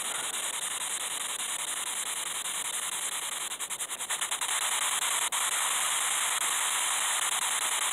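Steady radio static hiss from a handheld spirit box sweeping the radio band, with a quick run of clicks about halfway through.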